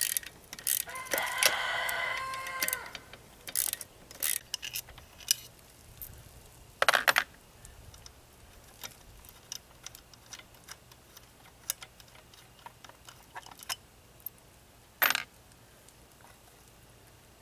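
Hand tools on an outboard lower unit: a quarter-inch ratchet clicking and sharp metal clinks and knocks as the water pump housing screws come out and the housing is worked loose, with louder clinks about seven and fifteen seconds in. A rooster crows once, about a second in.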